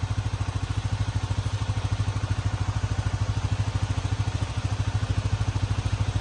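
A vehicle engine idling steadily, with an even, rapid pulse.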